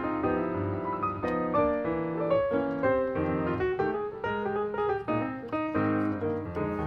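Background piano music: a melody of changing notes played over chords.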